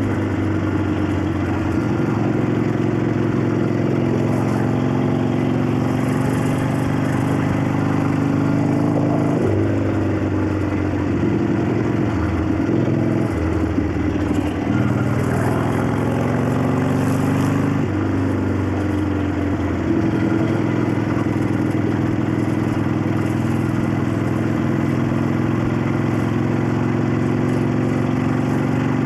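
The 1965 Harley-Davidson XLCH Sportster's 900 Ironhead V-twin running on the move, with its clacking valvetrain. The engine note is steady at first, then drops and climbs again several times through the middle, and settles to a steady note near the end.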